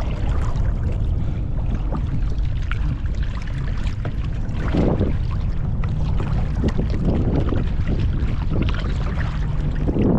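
Wind buffeting the microphone on a kayak, a steady low rumble, with kayak paddle strokes splashing in the water now and then, most clearly about five seconds in and near the end.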